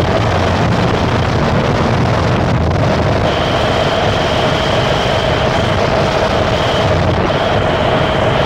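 Harsh noise music: a loud, unbroken wall of noise over a low rumble, with a steady droning tone in the middle. A thin high whine comes in about three seconds in and drops out briefly a few times near the end.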